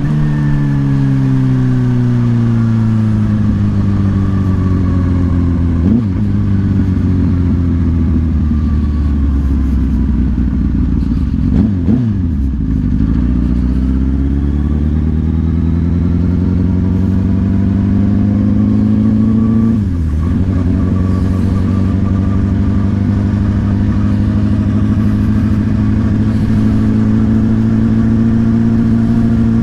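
Motorcycle engine while riding. The engine note falls for about twelve seconds as the bike slows, then rises as it accelerates. About twenty seconds in there is a brief dip, a gear change, and after that it runs at a steady pitch.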